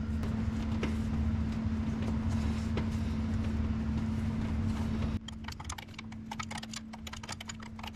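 A steady hum cuts off suddenly about five seconds in. After it come rapid light metallic clicks and rattles of hands working the steel power-steering pressure lines and their fittings into place.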